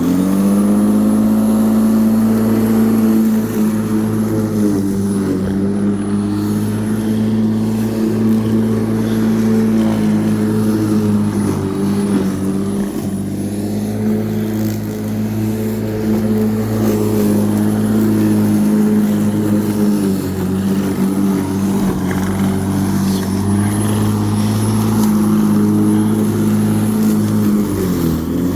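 Black & Decker 42 cm 1800 W electric rotary lawnmower starting up and running, a steady motor hum with a thin high whine above it. Its pitch sags briefly about four seconds in and again near the end as the blade takes a load of grass.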